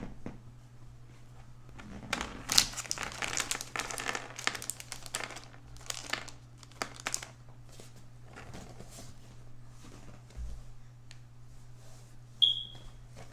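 Packaging crinkling as it is handled, in a dense run for about five seconds, then scattered smaller rustles and a short high squeak near the end.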